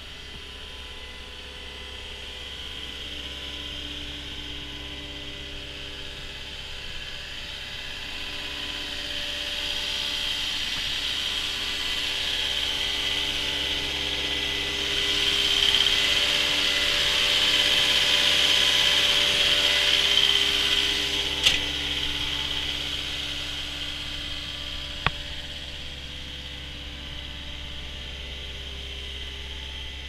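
Cat 242D skid steer loader's diesel engine idling steadily with its cooling fan, louder when the open rear engine bay is close about halfway through. Two sharp clicks in the second half.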